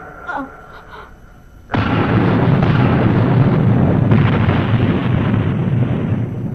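A sudden loud blast sound effect cuts in a little under two seconds in, then carries on as a heavy, deep noise for about four seconds, gradually fading.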